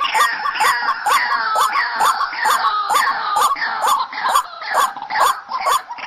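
White-breasted waterhen (ruak-ruak) calls layered into a dense lure track: many overlapping croaking notes that rise and fall, repeating several times a second, with a regular ticking running through them.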